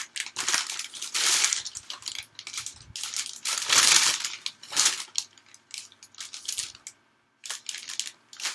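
Newspaper pages rustling and crinkling as they are handled and turned, in several bursts with short pauses between.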